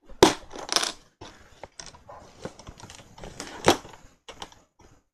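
Plastic LEGO bricks clicking and rattling as they are handled and pressed onto a model: a run of sharp clicks, the loudest just after the start, again just under a second in and about three and a half seconds in.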